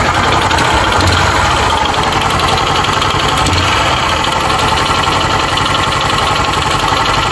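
A 150 cc motorcycle's single-cylinder four-stroke engine running steadily with a loud, rapid mechanical clatter. The noise seems to point to a worn cylinder kit (piston and cylinder), with a possibility of play in the connecting rod.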